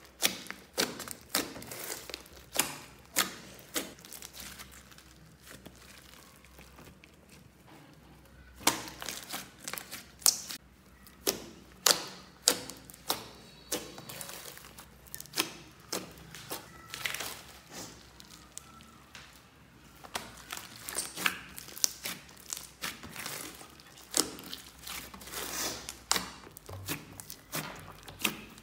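A large lump of glitter slime being poked and squeezed by hand, giving irregular runs of sharp pops and clicks, with a couple of quieter pauses between runs.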